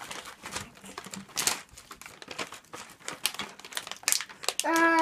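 Plastic M&M's candy bags crinkling and rustling irregularly as they are handled.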